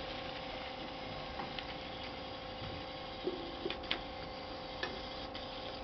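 Light clicks and knocks of empty aluminium drink cans being shoved together and off the edge of a mat by a small LEGO robot, the sharpest cluster about four seconds in, over a faint steady hum.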